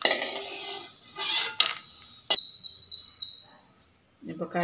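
A cricket chirping steadily in the background as a continuous high trill. For the first half there is also kitchen handling noise with a few knocks, which stops abruptly just past halfway.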